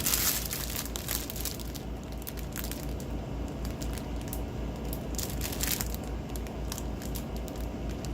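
Plastic packets of diamond painting drills being handled, crinkling and rustling, loudest at the start and again about five and a half seconds in.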